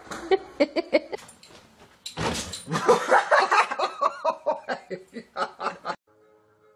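A person laughing hard in quick repeated bursts of "ha-ha", loudest from about two seconds in, then cutting off suddenly about six seconds in.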